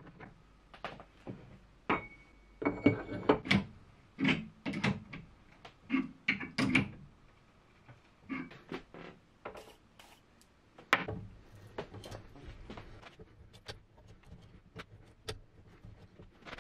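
Irregular metal clanks and knocks from steel parts and a small steel machine vise being handled and tightened with an adjustable wrench. One knock about two seconds in rings briefly.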